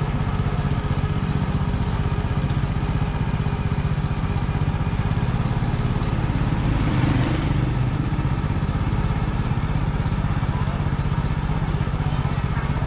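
Motorbike engine running steadily while riding, with a brief rush of noise about seven seconds in.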